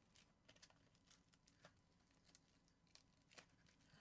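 Very faint crinkling and small scattered ticks of masking tape being peeled off an aluminium-foil-wrapped form, with a slightly sharper tick near the end.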